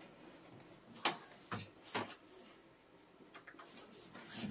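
Whiteboard duster wiping the board clean: three short strokes about half a second apart, starting about a second in, then faint handling sounds.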